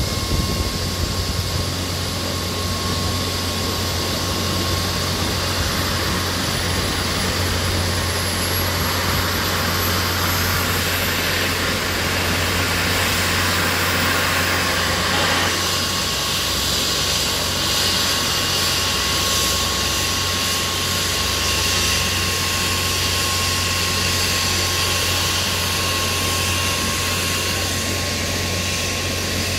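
Twin-turbine Agusta A109 helicopter running on the ground with its rotor turning: a steady turbine whine over a low rotor hum, with a broad rushing noise that eases off about halfway through.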